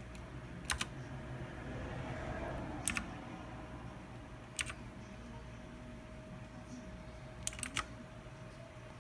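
Keys of a Thermaltake Poseidon Z RGB mechanical keyboard being pressed one at a time: a sharp click about a second in, another near three seconds and one near four and a half seconds, then a quick run of three or four clicks near the end. A faint steady hum lies underneath.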